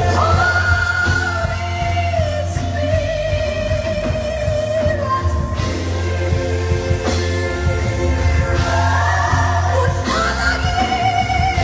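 Live gospel song: a woman's lead vocal holds long, wavering notes over a band with drums and piano.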